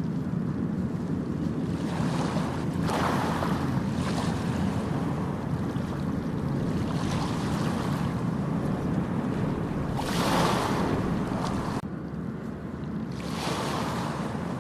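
Ocean waves breaking and washing up a beach: surges of surf about three seconds in, about ten seconds in and near the end, over a steady low rumble.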